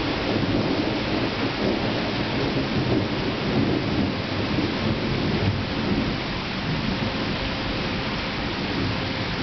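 Steady rain with a low rolling rumble of thunder, the rumble easing after about six seconds.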